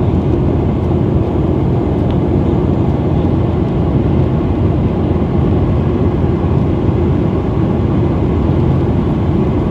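Steady cabin noise inside a jet airliner in flight: the constant drone of the engines and airflow, deep and even throughout.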